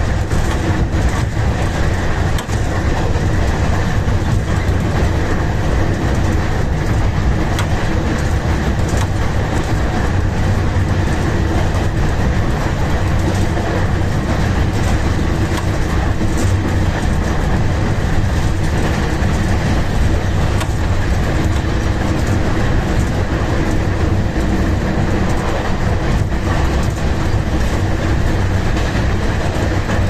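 Diesel locomotive running at speed, heard from its front end: a steady engine and running noise with the wheels clicking over the rail joints.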